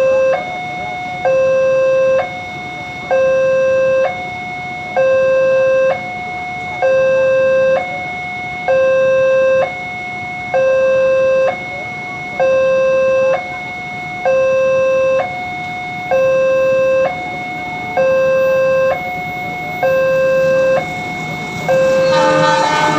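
Railroad crossing warning alarm sounding a steady two-tone alternation, a louder low tone and a higher tone switching about once a second. It signals that a train is coming. Near the end the noise of the approaching train starts to build.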